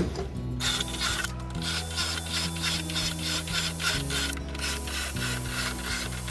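Drill bit boring shelf holes into a wood cabinet side through a shelf-hole jig: a quick, even run of rasping strokes, about four a second, starting about half a second in, over background music.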